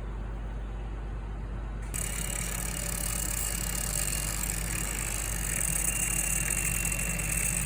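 A steady low engine hum, like a motor idling. About two seconds in, a hiss comes in abruptly over it with a faint high whine.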